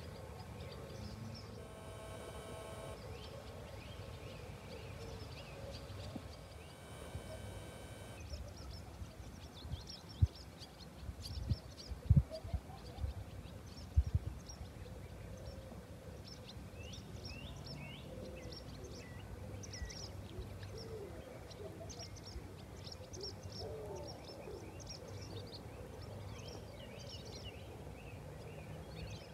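Small birds chirping and singing in quick repeated notes, busier in the second half, over a low steady rumble. A cluster of low thumps a little before halfway.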